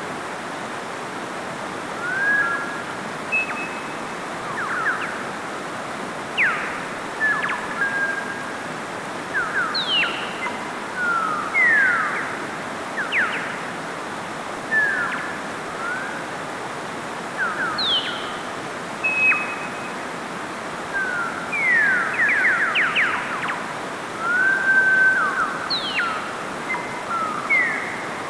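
Mountain stream flowing over boulders, a steady even rush of water. Over it, short bird chirps and whistles come every second or two, some sweeping up, some sweeping down.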